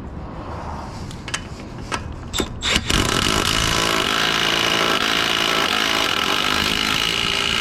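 A few clicks, then about three seconds in an impact wrench starts hammering steadily, driving the spindle nut onto the freshly re-threaded axle, until it stops abruptly.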